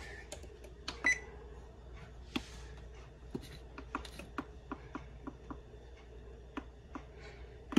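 Electronic oven control keypad pressed over and over to set the bake temperature, a short tick with each press, about three a second through the middle, over a faint steady hum.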